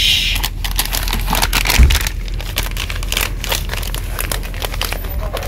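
Packaging crinkling and crackling as it is handled, in irregular rustles over a steady low hum.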